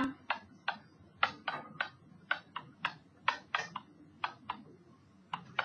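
Stylus tip tapping and clicking on a digital writing surface while handwriting: about fifteen sharp, irregular ticks.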